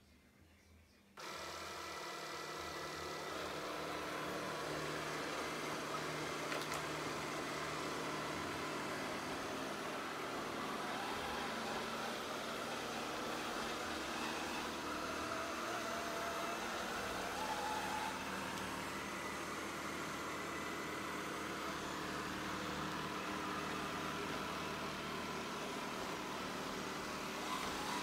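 Ecovacs Deebot Ozmo 950 robot vacuum's suction fan and brushes start suddenly about a second in, then run steadily as the robot drives across the tile floor.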